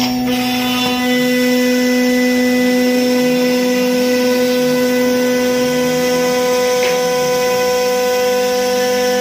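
CNC router spindle cutting circular grooves into an MDF sheet: a steady whine that holds one pitch.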